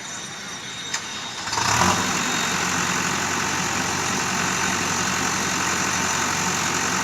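Diesel engine of a JCB backhoe loader running. A single click comes about a second in. Half a second later the engine sound turns sharply louder and then runs steadily.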